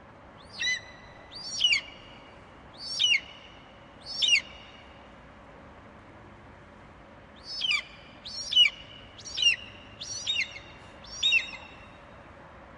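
An eagle calling in short, high cries that fall in pitch: four cries about a second apart, a pause of a few seconds, then about five more in quicker succession. There is a faint steady hiss behind them.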